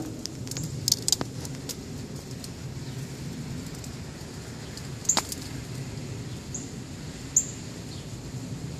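Outdoor ambience: a steady low rumble with a few sharp clicks about a second in, near the middle and near the end, and short high chirps like small birds.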